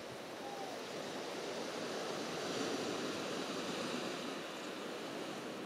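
Sea surf washing onto the beach, an even rushing that swells to its loudest about halfway through and then eases off.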